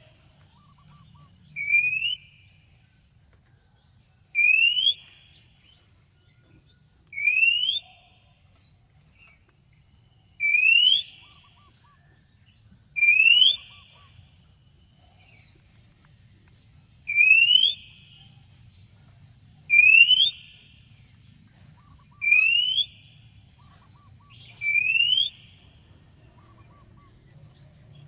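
Oriental magpie-robin (kacer) giving a short rising whistle, repeated nine times at intervals of two to four seconds, each note the same.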